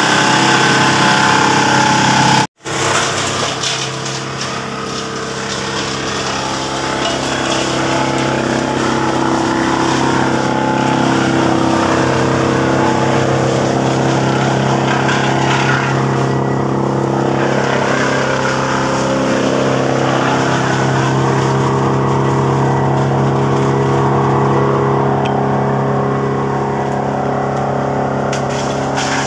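Wood chipper's engine running loud and steady at a constant pitch. The sound cuts out for a split second about two and a half seconds in.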